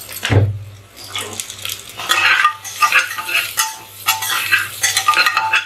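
Steel spatula scraping and clinking against the inside of a pressure cooker while stirring onions frying in oil, busiest in the second half. A dull knock in the first half-second.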